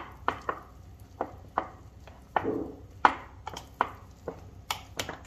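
Large metal spoon folding a thick batter studded with diced cheese, sucuk, olives and peppers in a glass baking dish. The spoon makes about a dozen irregular clinks and scrapes against the glass.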